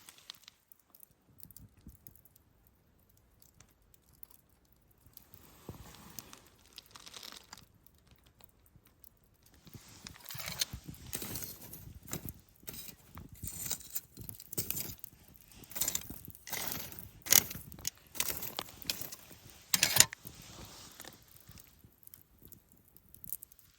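Irregular rustling, crinkling and small clinks of objects being handled, sparse at first and busier and louder from about halfway through.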